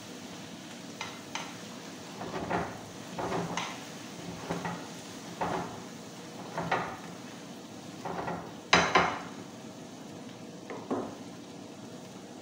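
A spatula scraping and knocking against a frying pan as lentils are stirred and fried, a dozen or so irregular strokes about a second apart, the loudest about two-thirds through, over a steady sizzling hiss.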